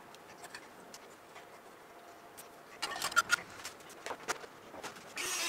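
Light clicks and a few sharper knocks of metal parts and tools being handled on a workbench, clustered in the second half. Near the end a steady hiss starts suddenly.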